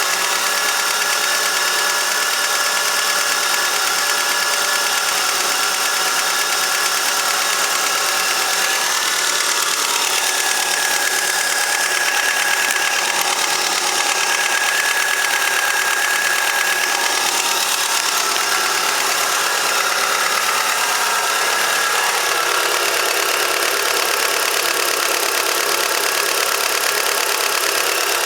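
Chevrolet Lacetti's 1.8 F18D3 (LDA) petrol engine idling cold, with a steady knock from the flaps of the variable-geometry intake manifold. This flap knock is a known fault of the F18D3 engine.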